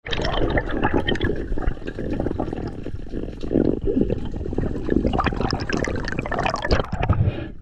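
Underwater water noise picked up by a submerged camera: a steady sloshing, bubbling rush with scattered clicks.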